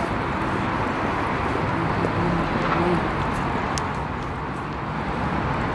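Steady outdoor city background noise: a wash of distant traffic with the faint, indistinct voices of passers-by.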